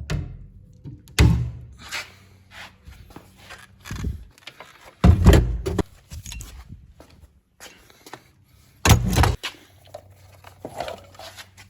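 Tools being loaded into a rolling tool cart: several heavy thunks a few seconds apart, the loudest about five seconds in, with lighter clatter and jangling of hand tools between them.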